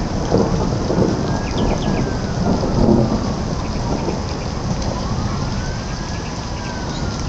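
Rain pouring down steadily in a thunderstorm, with thunder rumbling low underneath. A faint siren wails slowly up and down twice behind it.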